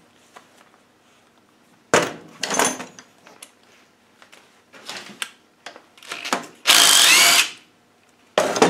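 Yellow cordless drill-driver with a T40 Torx bit, run in one burst of just under a second near the end with a whine that rises and falls in pitch, undoing the detent plug on a Land Rover R380 gearbox casing. Before it come a few knocks and clatters of tools being handled on the bench.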